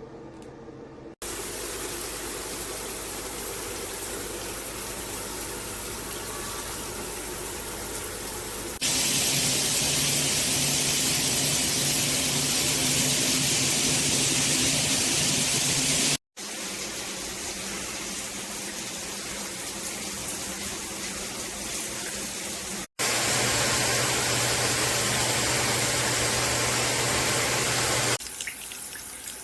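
Water spraying steadily from a FASTRAS LED handheld shower head, a hiss that changes level abruptly several times, louder in two stretches and dropping out for a moment twice.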